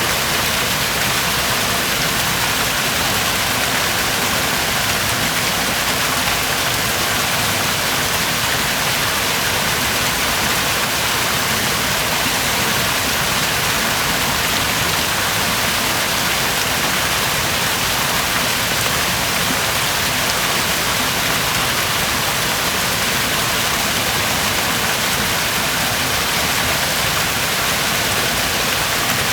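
Pool water running and splashing steadily, an even rushing hiss that does not change.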